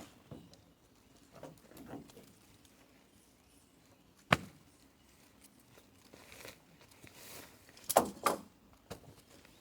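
Objects being handled at close range: faint rustling, a single sharp knock about four seconds in, and a quick cluster of knocks and clatters near the end.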